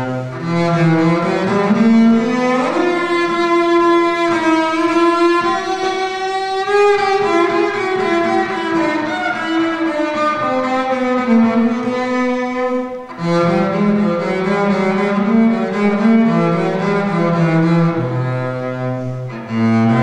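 Solo double bass played with a bow: long held notes that slide up into the high register about two seconds in, then drop back to low notes about thirteen seconds in.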